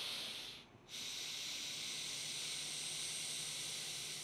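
A man's slow, deep breathing through the nose, filling the lower belly. One long, even breath ends under a second in, and after a short pause another long breath runs for about four seconds.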